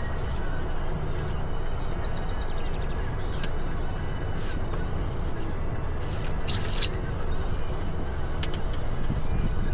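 Outdoor riverbank ambience: a steady low rumble with a hiss over it, typical of wind on the microphone. A few short high chirps or clicks break through, the clearest lasting under a second about six seconds in.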